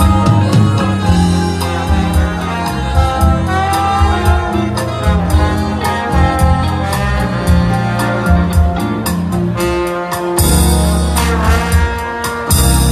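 Live band music from drum kit, keyboard, saxophone and trombone, with regular drum hits under the horns. Loud cymbal crashes come about ten seconds in and again near the end.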